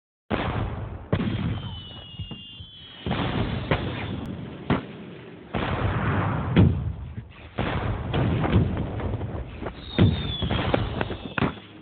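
A series of sharp bangs and booms over a noisy rumble, with two short falling whistles, one near the start and one near the end.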